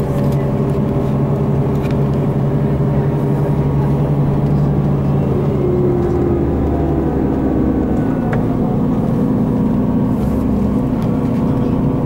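Engine and road noise of a motor vehicle driving a winding mountain road, heard from inside the cabin: a loud, steady drone whose pitch shifts lower about six seconds in.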